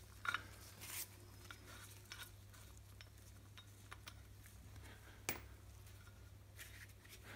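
Faint metallic clicks and taps as steel bolts and washers are handled and worked out of a Wilwood four-pot brake caliper and its bracket, with one sharper click about five seconds in, over a low steady hum.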